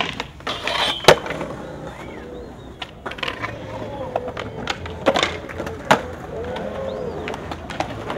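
Skateboard wheels rolling on concrete, broken by sharp clacks and landing impacts of the boards: the loudest about a second in, two more around five and six seconds in.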